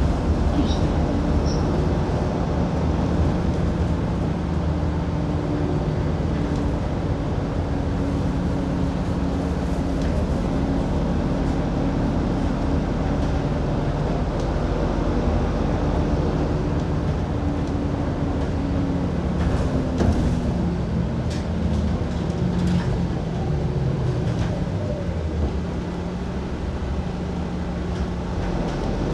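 City bus under way, heard from on board: a steady engine drone with road noise. The engine pitch shifts up and down about two-thirds of the way through, and a few light rattles come near the same point.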